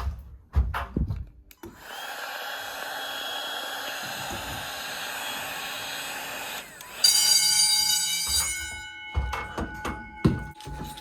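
A steady blowing noise runs for about five seconds. Then, about seven seconds in, the fire alarm bell of an Edwards 6500 system starts ringing, bright and metallic, and its tones hang on: an alarm has come in during the system test.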